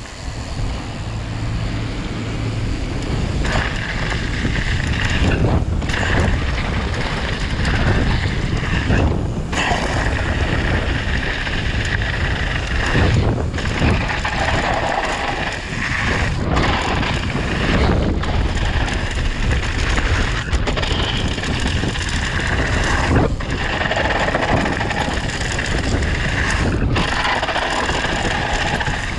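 Wind buffeting the camera microphone over the noise of a mountain bike's tyres rolling fast over loose gravel on a downhill descent. The noise is steady and loud, with short dips every few seconds.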